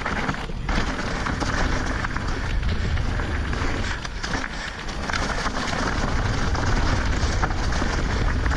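Wind rumbling on the microphone over a constant jumble of small knocks and rattles, typical of a mountain bike ridden over a rough dirt trail.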